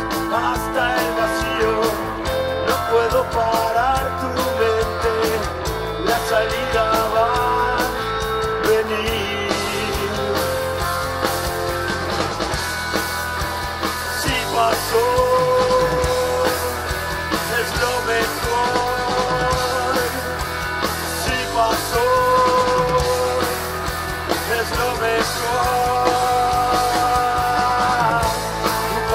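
A live rock band playing, with electric guitars, drums and keyboards. Long held melodic notes bend in pitch over a steady beat.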